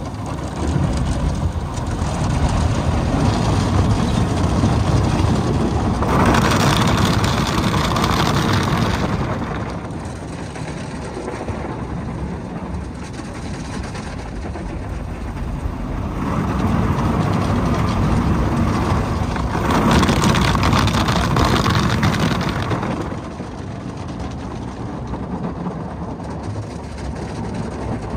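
Automatic tunnel car wash heard from inside the car: a steady low rumble with water and foam being sprayed onto the car, swelling louder twice as the spray passes over.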